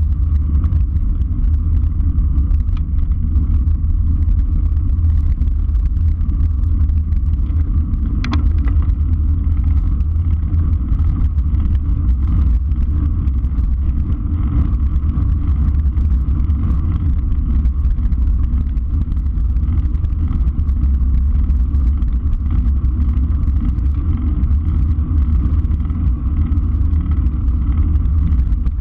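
Steady wind rumble on the microphone of an action camera riding on a road bicycle at speed, with rolling tyre noise on rough asphalt. A single sharp click comes about eight seconds in.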